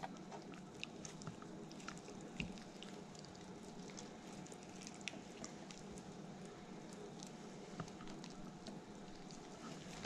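Faint wet squelching and small clicks of fingers pulling the guts out of a redfin perch on a wooden cutting board.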